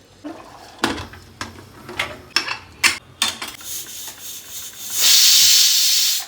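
Cooking sounds: a utensil scraping and knocking in a pan several times, then a loud steady hiss for about a second near the end.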